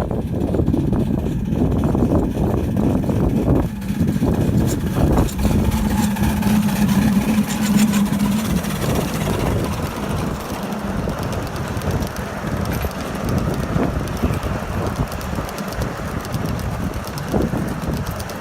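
Ride-on scale live steam train, two consolidation locomotives double-heading a long string of cars, running along the track, with wind buffeting the microphone.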